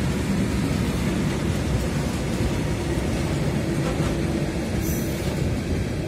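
Freight train of open high-sided wagons rolling past, a steady low rumble of wheels on the rails.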